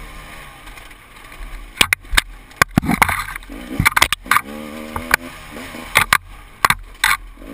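Enduro motorcycle engine revving up and down as it is ridden off-road, with repeated sharp knocks and clatter.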